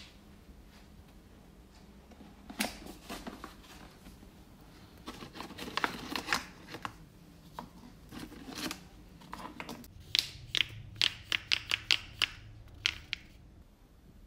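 Plastic Dolce Gusto coffee capsules clicking and clattering against each other in a cardboard box as a hand sorts through them, with scattered taps and rustles and a quick run of sharp clicks about two-thirds of the way through.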